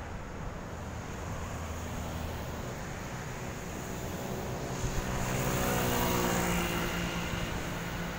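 Engine noise of a passing vehicle over steady street-traffic hum, swelling to a peak about six seconds in and then fading.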